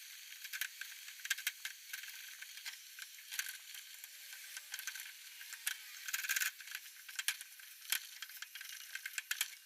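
A whisk stirring sugar syrup as it boils in a pot: irregular clicks and scrapes of the whisk against the pot over a steady sizzling hiss. The syrup is cooking down until it thickens.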